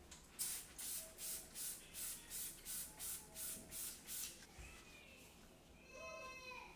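Hand trigger spray bottle squirted about a dozen times in quick succession, roughly three squirts a second, each a short hiss. Near the end, a brief squeak as a cloth wipes the refrigerator door.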